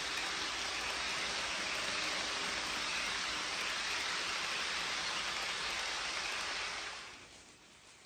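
HO scale model passenger train running fast past close by, its metal wheels rolling on the track in a steady rushing hiss that falls away sharply about seven seconds in.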